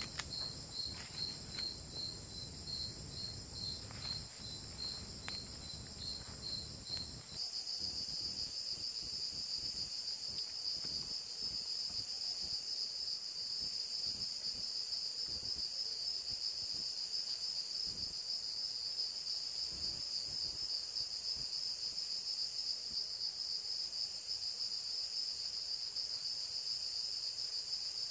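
Night insect chorus. Until a cut about seven seconds in, one insect chirps in regular pulses about twice a second over the crackle of a small wood campfire. After the cut, a steady, unbroken high insect trill takes over.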